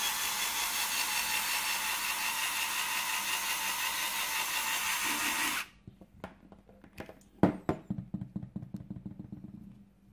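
Small cordless drill running with a flexible shaft extension spinning in its chuck, a steady whir that cuts off suddenly about five and a half seconds in. Then clicks and rattling as the segmented plastic flexible shaft is handled and pulled off the drill, with one sharp knock about halfway through followed by a quick run of fading ticks.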